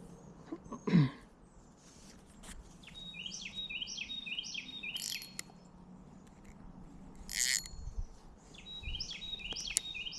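A bird singing a phrase of about five quick, down-slurred whistled notes, given twice. About a second in there is a brief loud swish that falls sharply in pitch.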